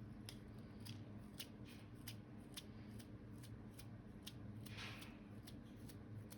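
Faint, irregular dry ticks, about three a second, with a brief papery swish near the end, over a low steady hum: small hand work on paper at a drawing table.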